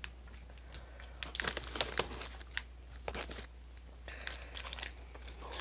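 Plastic cracker wrapper crinkling and rustling in hands, in irregular crackly bursts that start about a second in.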